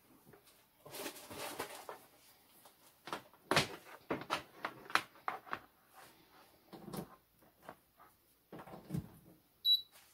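Kitchen handling sounds: a run of clicks, knocks and rustling as poultry seasoning is shaken over chicken thighs in a NuWave countertop oven, then a short high beep near the end.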